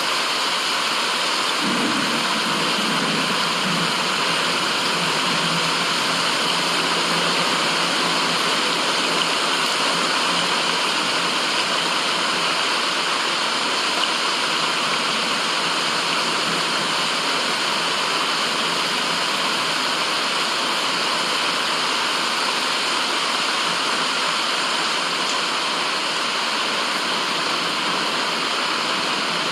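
Steady, unbroken white-noise hiss like rushing water, strongest in the mid-to-high range, with a faint lower murmur in the first several seconds.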